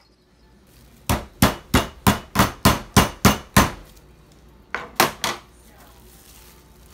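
A meat mallet pounding chicken breasts through plastic wrap on a cutting board, to tenderize and flatten them. It strikes in a quick run of about nine blows, around three a second, then three more after a short pause.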